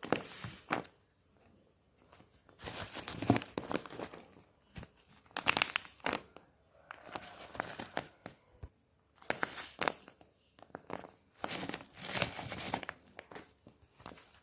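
Plastic packaging being handled by hand while parcels are packed: bursts of crinkling, rustling and tearing with short pauses between them.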